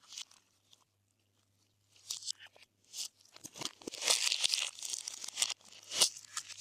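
Glossy slime being worked by hand, with sticky crackling and small popping sounds. The first two seconds are almost quiet; the crackling starts about two seconds in and is densest and loudest from about four seconds in.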